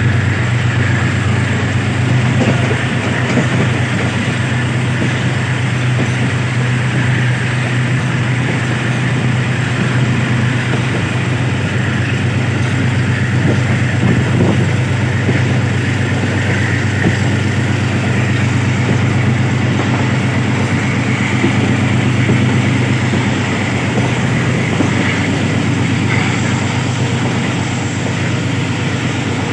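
Passenger train running at speed on the rails: a steady, loud rumble of wheels on track over a constant low drone.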